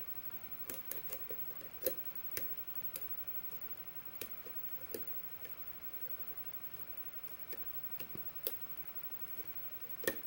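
Lock pick working the pins of a five-pin pin tumbler challenge lock under tension: small, irregular clicks of the pick and pins, in loose clusters with short gaps between.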